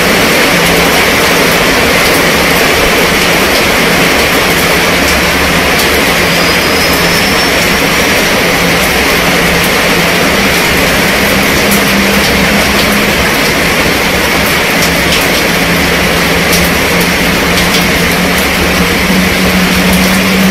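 Heavy rain falling on a tent's fabric roof: a loud, dense, steady hiss with faint scattered drop ticks. A steady low hum runs underneath, growing stronger near the end.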